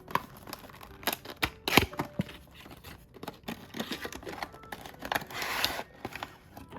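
Packaging of a coaster set being opened by hand: a run of sharp clicks and taps as it is handled, then a noisy tear or rustle lasting just under a second about five seconds in.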